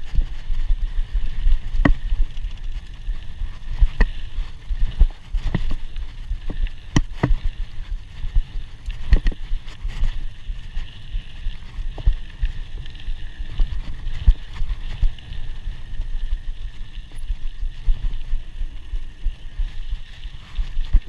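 Scott Scale 960 hardtail mountain bike ridden fast over a dirt track: a constant low wind rumble on the chest-mounted camera, broken by irregular sharp knocks and clatter as the chain and frame rattle over the bumps.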